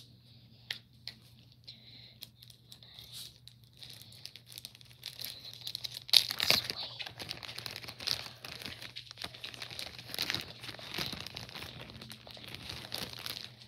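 Crinkling and rustling close to the microphone. A few separate clicks at first, then dense and continuous from about five seconds in, loudest just after six seconds.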